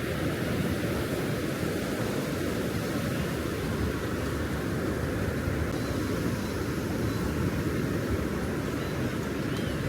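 Wind rumbling on the microphone over the steady wash of ocean surf, with no break or change.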